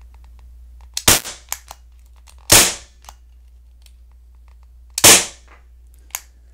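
Daisy Powerline 426 CO2 BB pistol firing three shots, the second about a second and a half after the first and the third about two and a half seconds later. A few fainter clicks come between them.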